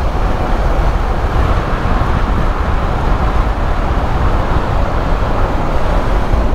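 Steady riding noise from a KTM 390 Adventure on the road: wind rushing over the microphone with the single-cylinder engine running underneath.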